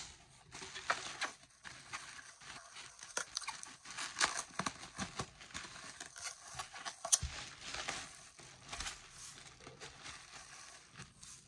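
Plastic bubble wrap crinkling and rustling as it is handled, a run of irregular crackles with one sharper click about seven seconds in.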